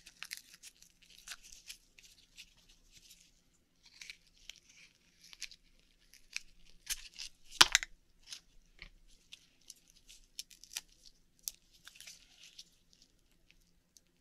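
Akoya pearl oyster being shucked and its flesh searched by hand: faint, intermittent crunching, tearing and squishing. One sharp click a little past halfway is the loudest sound.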